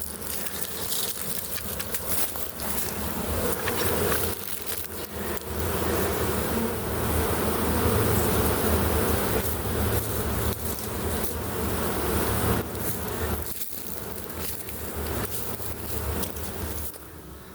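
A honey bee swarm buzzing, a dense, steady hum of many bees that drops off suddenly near the end.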